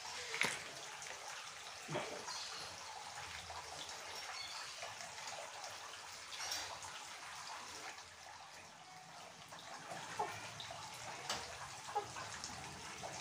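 Handling sounds as a woven doormat is laid on a tiled floor and a small 12 V air compressor is set on it: soft rustling and a few light knocks, the sharpest about half a second in, over a faint steady hiss.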